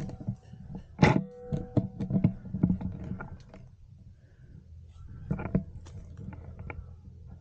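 Clicks, knocks and rustles of an airsoft player shifting through dry undergrowth and handling a rifle, with one sharp crack followed by a brief ringing tone about a second in.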